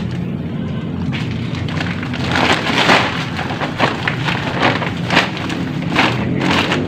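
Crushed hollow-block rubble and grit being scraped and pulled by hand out of a concrete wall tomb: a run of crackling scrapes and rattles from about two seconds in, over a steady low hum.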